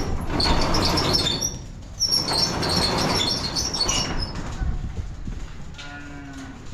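Cattle hooves clattering and scuffling on a hard floor as steers are driven along, in two loud spells with sharp high squeaks. It is followed near the end by a short pitched call.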